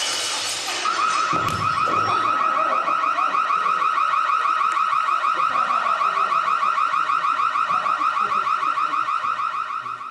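A loud warbling alarm tone, one pitch with a fast, even trill, starting about a second in and holding steady until it cuts off abruptly at the end.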